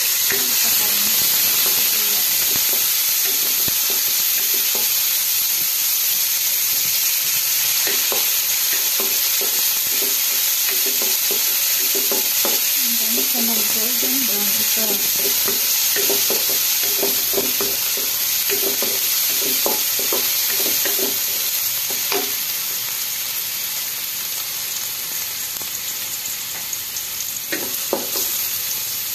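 Minced garlic sizzling in hot oil in a stone-coated wok, with a steady frying hiss, while a wooden spatula stirs it, knocking and scraping against the pan now and then. The sizzle eases slightly over the last several seconds.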